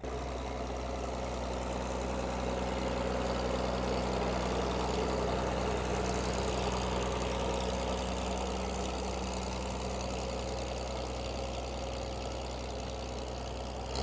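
Restored Fordson Major tractor's engine running steadily under load while pulling a plough.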